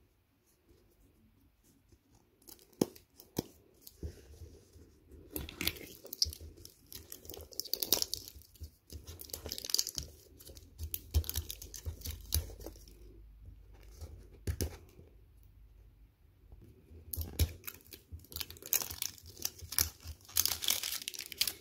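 Thin plastic shrink-wrap being torn and peeled off a plastic toy capsule by hand, crinkling and crackling in repeated bursts, with a brief lull about two-thirds of the way through.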